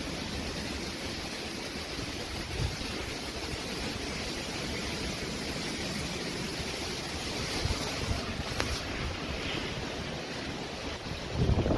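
Strong wind of a summer storm squall blowing steadily, with gusts buffeting the microphone, the heaviest near the end, and surf washing underneath.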